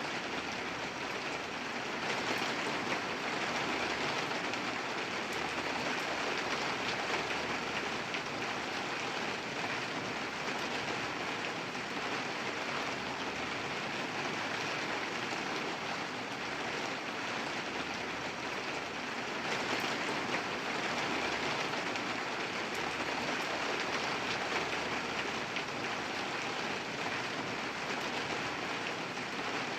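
Steady rain falling, a dense even patter of drops on surfaces, swelling slightly a couple of times.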